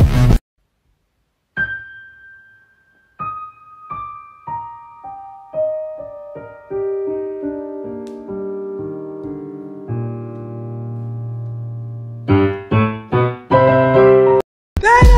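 Solo piano music: after a moment of silence, single notes struck about twice a second, each lower than the last, come to a low held note around ten seconds in, then a quick run of short, punchy chords near the end.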